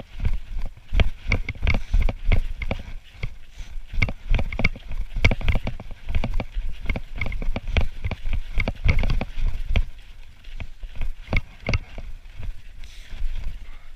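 Hiker's footsteps crunching on snow and ice: a rapid, irregular run of sharp crunches, over low rumbling on the microphone.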